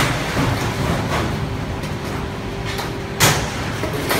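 Metal-furniture factory workshop noise: a steady machinery hum with two sharp knocks, the louder one about three seconds in.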